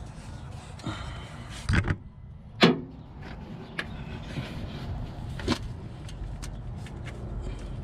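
Light metallic clanks and clicks of a hand tool and engine parts while a glow plug is being worked on. There is a sharp double knock a little under two seconds in, a louder single knock just under three seconds in, and scattered light ticks near the end.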